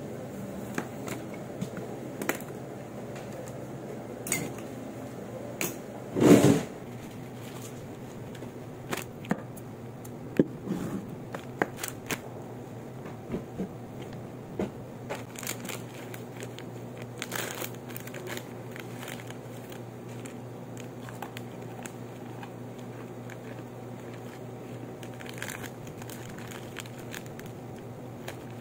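Plastic and foil snack wrappers rustling and crinkling as they are handled on a tabletop, with scattered light clicks and taps and one louder rustle about six seconds in. A steady low hum runs underneath.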